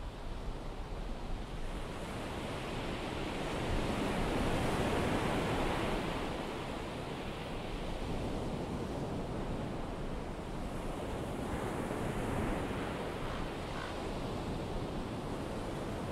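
Ocean surf washing on a beach, a steady rush that swells louder about four seconds in and again near twelve seconds.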